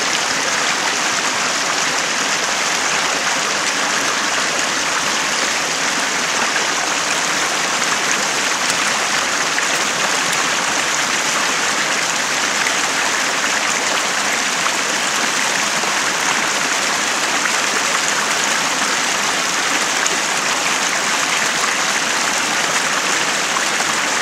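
Shallow rocky stream running steadily, with part of its flow channelled down a small sluice box and spilling into a plastic bucket. An even, unbroken rush of water.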